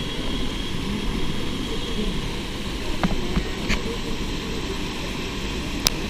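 Steady rushing of an artificial waterfall cascading over rocks into a pool, with a few faint clicks about halfway through and near the end.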